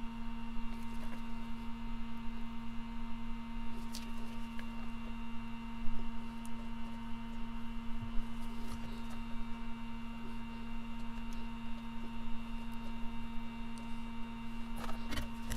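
A steady electrical hum at one constant pitch, with a few faint clicks and taps over it.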